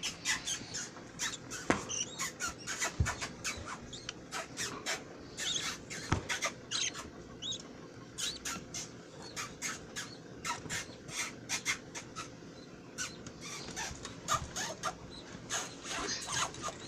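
Budgies chirping: a fast run of short, high chirps, several a second, with a few low soft knocks of handling in between.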